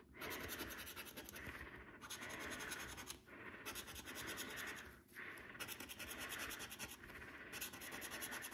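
Plastic scratcher rubbing the silver latex coating off a paper scratch card in quick, short strokes. The scratching is quiet and comes in runs of a second or two with brief pauses between them.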